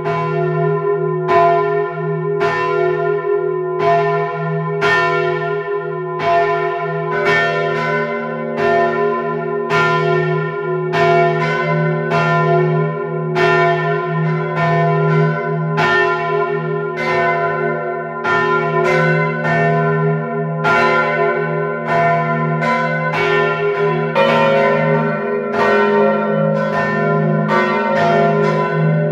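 Large church bells of the Dom Tower in Utrecht swing-ringing together at close range inside the bell chamber: a dense, irregular run of overlapping strikes, about one or two a second, over a sustained hum. Fresh tones come in after about seven seconds and again near the end as further bells join the peal.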